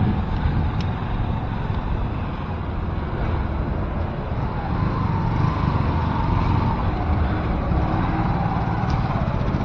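Road traffic with vehicles running close by, under a low, steady rumble of wind on a helmet-mounted action camera's microphone.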